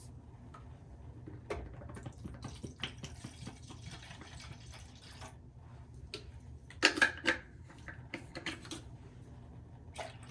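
Water running for about three seconds, then a few clatters and knocks of objects being handled.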